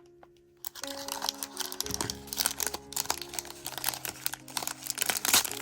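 Blind-box toy packaging being opened and handled, with a dense run of crinkling and rustling from about a second in, over soft background music.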